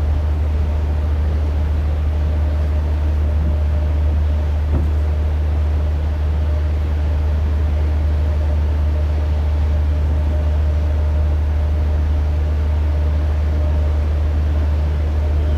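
Passenger ferry's engines heard from on board: a steady low drone with an even hiss above it, unchanging throughout.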